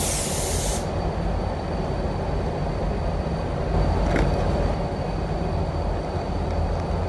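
Paint spray gun's compressed-air hiss cutting off suddenly just under a second in as the trigger is released on a pass of waterborne basecoat, leaving the steady low rumble of the paint booth's airflow. A light click about four seconds in.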